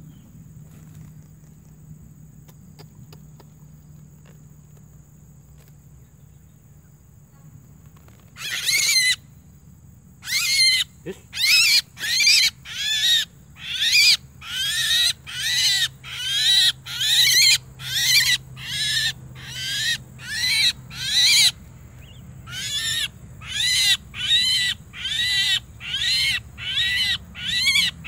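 Myna (jalak) giving loud, harsh, rasping calls, repeated evenly about one and a half times a second. The calls begin about a third of the way in and break off briefly a little after two-thirds of the way through.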